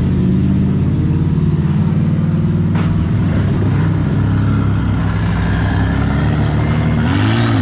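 Off-road rock-crawling buggy engine working under load, its revs rising and falling briefly near the end.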